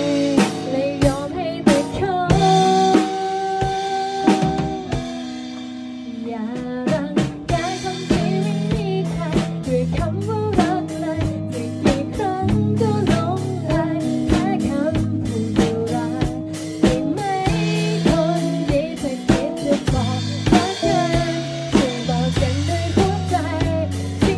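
A female singer sings a song with a live band: a drum kit with snare and bass drum under a bass line. About three seconds in, the drums drop back to a lighter part, and at about seven seconds they come back in full.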